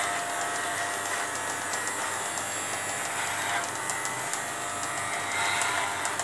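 Corded electric pet clippers running with a steady buzz as they shave thick dog fur, a little louder at moments.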